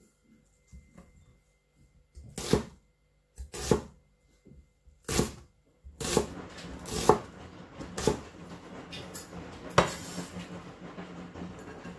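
Kitchen preparation knocks: utensils and ingredients knocked and set down on a work surface, one sharp knock every second or so, with a steady rushing noise setting in about halfway through.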